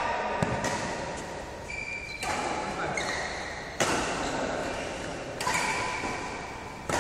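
Badminton rackets striking a shuttlecock in a rally: five sharp hits about a second and a half apart, each echoing through a large hall.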